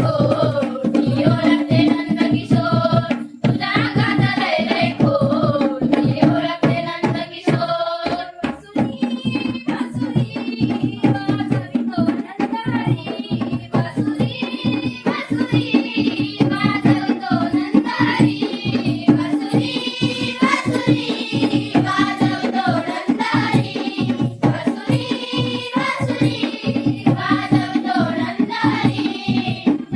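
Marathi folk song sung with hand-drum accompaniment: a singing voice over quick, steady drum strokes and a continuous held tone underneath.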